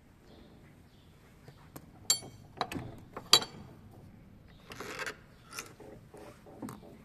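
The metal lever handle and latch of a carved wooden door click sharply twice, then a brief scraping noise comes as the door swings open, followed by a few lighter clicks.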